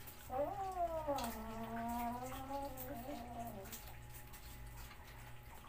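A cat gives one long, drawn-out meow of about three seconds that rises and then falls in pitch. Faint clicks and a steady low hum run underneath.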